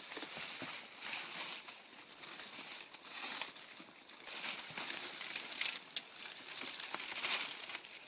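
Dry palm fronds rustling and crackling as a horse rubs her body against them to scratch, in repeated surges.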